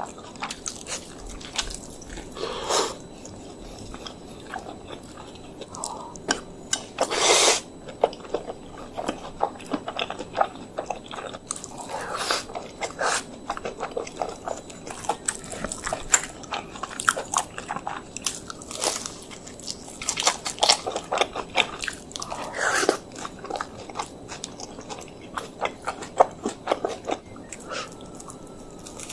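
Close-miked crunching bites and chewing of crispy fried chicken: dense, irregular crackles of the breading with several louder bites, the biggest about seven seconds in.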